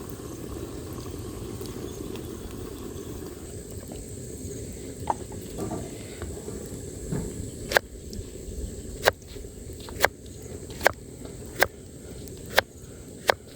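A run of sharp knocks, about one a second, starting a little past the middle, over a steady low rumble.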